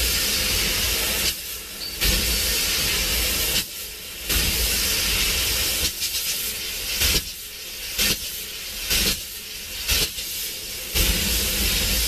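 Laser tube-cutting head hissing as its assist gas blows through each cut, in spurts of one to two seconds that break off briefly between cuts. The breaks come more often in the second half.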